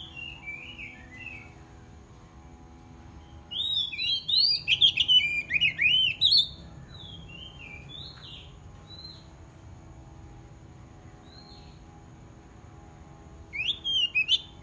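Oriental magpie-robin singing its fierce challenge song: quick, varied whistled phrases that swoop up and down. A loud dense burst comes about four seconds in and lasts some three seconds, a few single notes follow, and a second short burst comes near the end.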